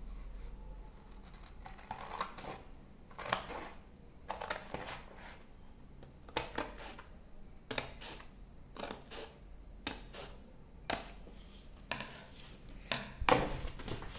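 Scissors cutting drawing paper in a string of short snips, about one or two a second, the loudest near the end, trimming the torn spiral-binding edge off the sheets.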